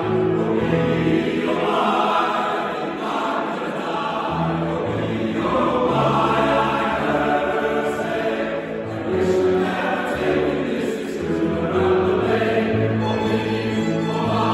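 Male chorus singing in harmony, held chords changing every second or so, a Newfoundland folk song accompanied by grand piano and violin.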